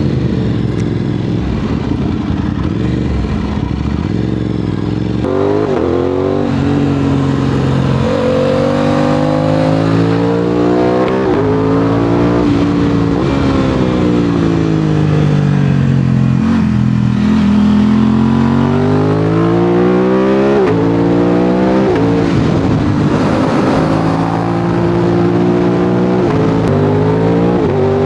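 Aprilia RS 660 parallel-twin engine through an SC-Project SC1-R exhaust, running low and even for the first few seconds. It then pulls up through the revs in steps, as with upshifts, and falls back as the bike slows, several times over.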